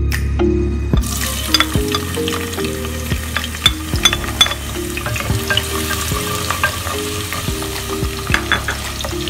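Chopped onion sizzling and crackling as it hits hot olive oil in an earthenware casserole pot, starting about a second in, with a wooden spoon stirring it.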